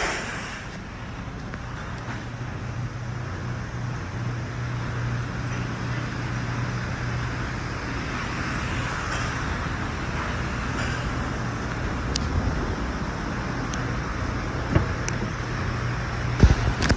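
Steady low hum with a hiss, as of shop fans or machinery running. A few sharp clicks come in the second half, then a couple of thumps near the end as the SUV's rear door is handled and opened.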